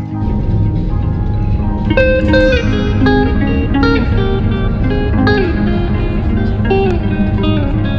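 Background music: a plucked guitar melody over a steady low bass, the melody coming in about two seconds in.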